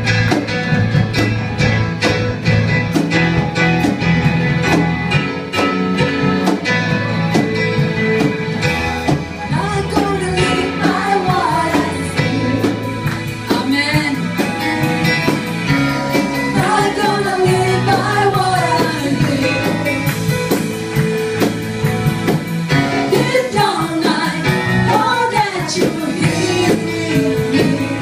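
Live worship band playing a song over a PA system, with steady bass and sustained chords; singing voices come in about ten seconds in.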